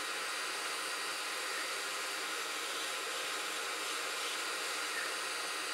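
Hot air gun blowing a steady hiss of air onto a plastic camera cover to soften the glue holding it on.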